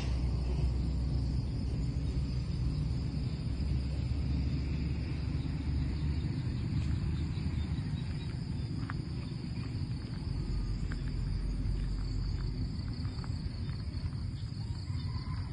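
Steady high insect chorus over a low rumble, with a few faint clicks in the second half.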